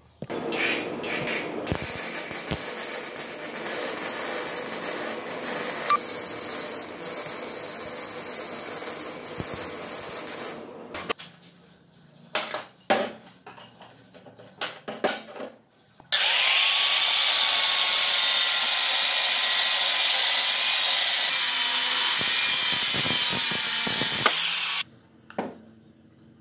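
A power tool running in two long spells, with a few sharp metal clicks between them. The second spell is louder, and its pitch curves and then settles soon after it starts.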